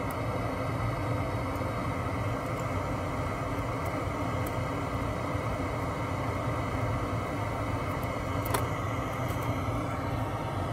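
Steady low hum and hiss of background machinery or ventilation, with a few faint light clicks, the sharpest about eight and a half seconds in.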